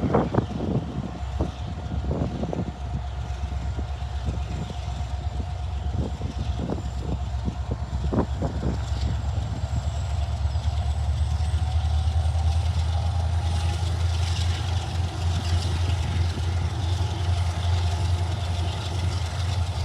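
Freight train led by an EMD SD70M diesel locomotive approaching: a steady deep engine rumble that grows louder about two-thirds of the way through, with no horn sounded.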